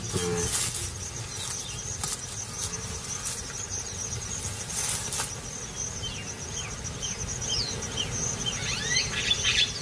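Savanna ambience: insects trilling steadily, with a few brief rustles and a run of short, high chirps near the end.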